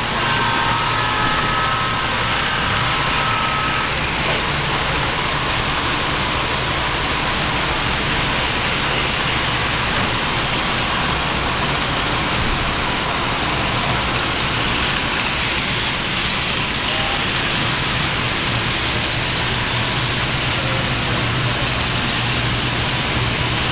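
HO-scale model passenger train rolling past: a steady, even rumble and hiss of many cars' metal wheels running on the track.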